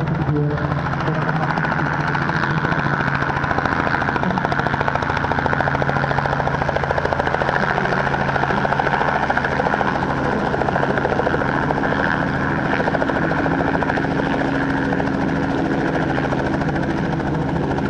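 Helicopter running steadily, a continuous engine-and-rotor drone with a few steady tones; one tone shifts slightly about twelve seconds in.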